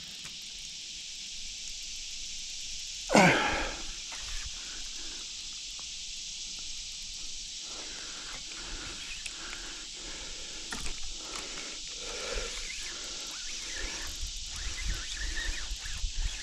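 Riverbank outdoor ambience with a steady high hiss. About three seconds in comes one loud, short swish that falls in pitch. From about eight seconds there are scattered small clicks and rustles from handling a spinning rod and reel.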